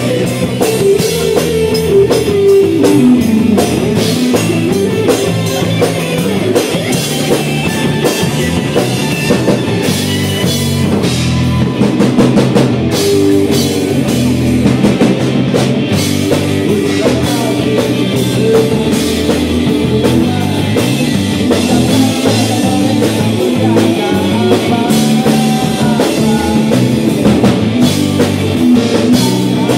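Live rock band playing electric guitars, bass guitar and drum kit.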